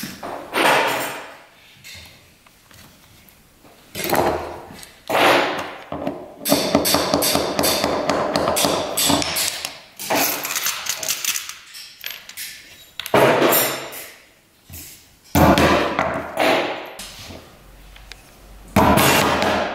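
Small hammer tapping in repeated short bouts of quick strokes, with pauses between. It is setting the nails and the lead came tight around the glass of a leaded-glass panel pinned to a wooden workbench.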